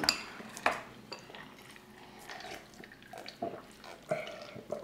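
Quiet eating and drinking sounds: two sharp clicks of a fork against glass dishes in the first second, then soft wet sounds of drinking iced water from a glass.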